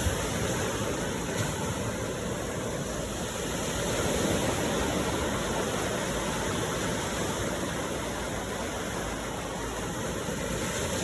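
Steady rain, an even rushing hiss that does not let up.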